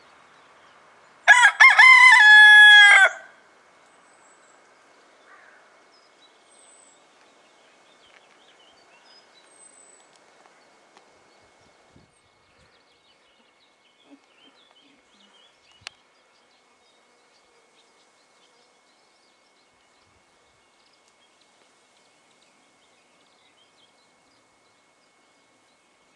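Cockerel crowing once: a loud cock-a-doodle-doo of about two seconds, broken at the start and falling in pitch at the end. Later there is a single faint sharp click.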